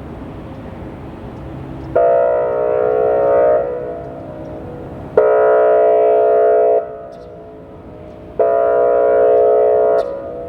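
Whelen WPS-2905 outdoor warning siren sounding its airhorn signal: three loud, steady horn blasts of about a second and a half each, repeating about every three seconds.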